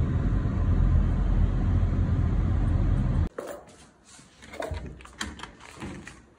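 Steady low road rumble inside a moving car's cabin, cutting off abruptly about three seconds in. After it come a few light clicks and knocks of a metal pet safety gate being handled and unlatched.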